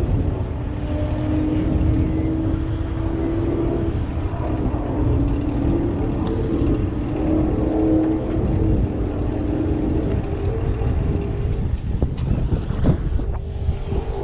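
Car engines running steadily, their pitch drifting slightly, over a low rumble, with a few knocks near the end.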